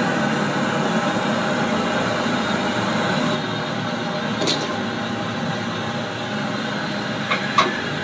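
Gas brazing torch hissing steadily while its flame heats a copper refrigerant pipe on a window air conditioner, with a few light clicks midway and near the end.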